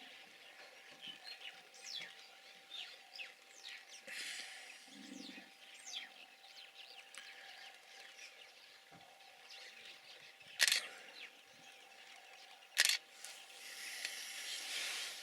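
Birds chirping throughout, with a short low hippo grunt about five seconds in. Two loud sharp clicks, about two seconds apart, stand out in the second half.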